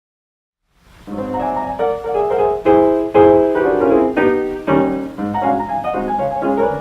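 Solo stride piano played from a 1930 78 rpm shellac record, coming in after about a second of silence with brisk chords and runs, the loudest chords struck about two to three seconds in.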